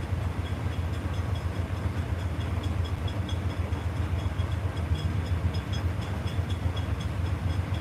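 Amtrak train standing at a station platform, running with a steady low rumble, with faint short high ticks on top.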